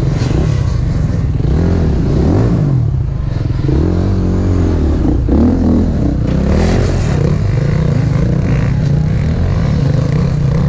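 Two-stroke enduro motorcycle engine being ridden hard, its note repeatedly rising and falling as the throttle is opened and closed.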